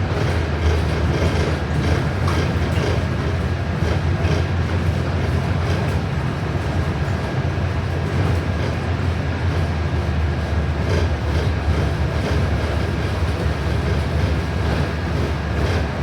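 Interior of a New Flyer XD40 diesel city bus under way: a steady low rumble of engine and road noise, with scattered light clicks.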